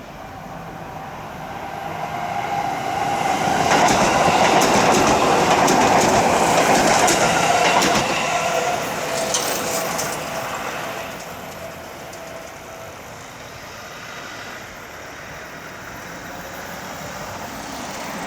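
Seibu Tamako Line electric train passing over a level crossing, its wheels clicking over the rail joints. It grows louder over the first few seconds, is loudest about four to eight seconds in, then fades away.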